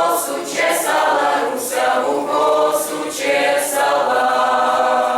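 A group of voices singing together in chorus, unaccompanied, in sustained phrases.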